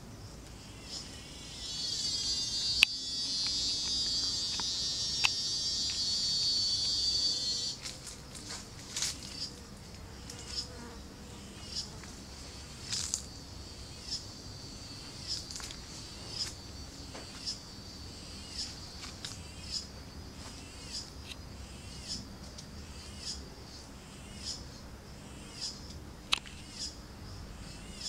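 Outdoor insects: a loud, steady, high-pitched buzz that cuts off suddenly after about six seconds, then short high chirps repeating roughly once a second over a faint steady hum.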